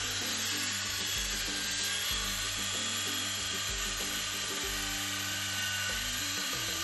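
Electric chainsaw with a carving bar running steadily as it cuts into a wood carving, with music underneath.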